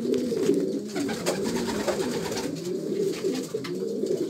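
Several domestic pigeons cooing at once, their low, wavering coos overlapping without a break.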